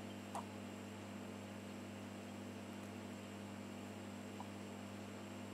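Room tone: a steady low electrical hum over hiss, with a faint click a little after the start and another near the end as the rifle parts are handled.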